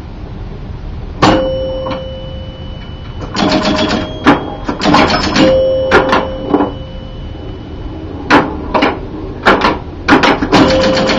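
1977 Gottlieb Jungle Queen electromechanical pinball machine in play: sharp clacks of bumpers and flippers and rattling runs of score reels and relays. Chimes ring on for a second or two after several of the hits. It starts with a single loud clack about a second in, and the clatter comes in quicker clusters from about three and a half seconds.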